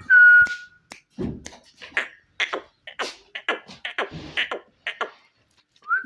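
Green ringneck parakeet whistling once: a short rising note that levels off and is held. It then makes a quick run of short, clicking chatter notes and ends with another rising whistle.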